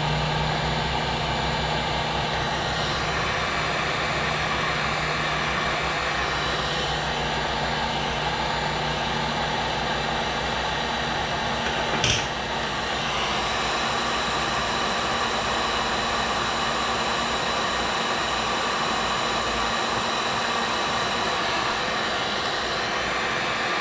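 Electric heat gun blowing steadily, preheating a hardened-steel hay rake tine before it is welded. There is one brief knock about halfway through.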